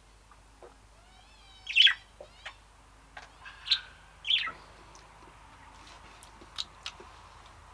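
Caged pet bird chirping and squawking in short, sharp calls. The loudest comes about two seconds in, two more follow near four seconds, and a few fainter chirps come later.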